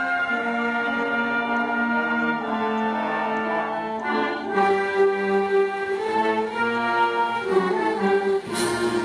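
Wind band playing a balitaw arrangement, with held chords under a moving melodic line. A bright crash sounds near the end, and the music moves to a new chord.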